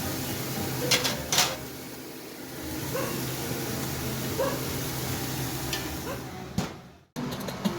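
Steaks sizzling on a grill over a hot fire, with two sharp knocks about a second in.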